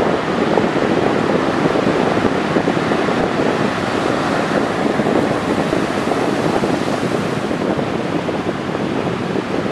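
Atlantic Ocean surf: waves breaking and washing in, a steady rushing noise, with wind on the microphone.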